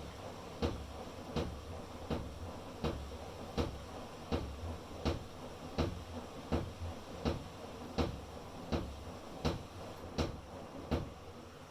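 Electrolux PerfectCare 800 washing machine knocking loudly and regularly, about once every three-quarters of a second, over a low running hum. The knock is one the Electrolux repairman called normal for the machine, and balancing the machine makes it less frequent.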